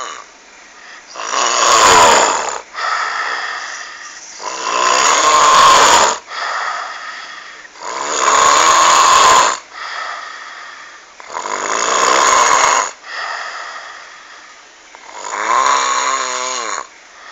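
Loud snoring in a slow, even rhythm: five heavy snores, one about every three and a half seconds, with a softer breath sound between each.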